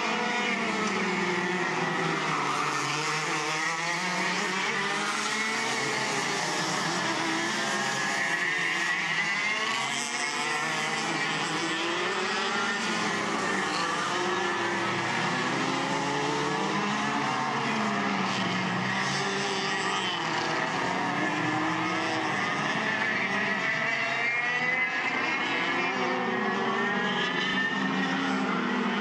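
Several racing kart engines running round a circuit at once. Their overlapping pitches keep rising and falling as the karts accelerate out of corners and back off into them.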